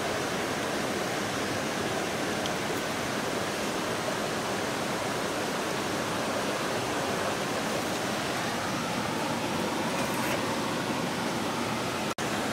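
Steady rushing of a flowing stream, an even wash of water noise, cut off for an instant near the end.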